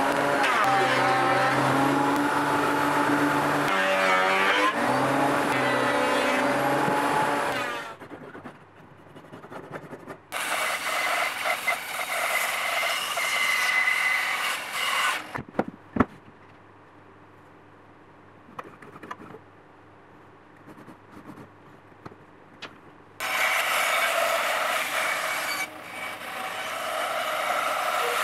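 A benchtop thickness planer runs for the first several seconds, its motor pitch shifting a few times, and then stops. A band saw then cuts through a thick oak board twice, each cut lasting about five seconds, with a few knocks of wood on the steel table in the quiet gap between.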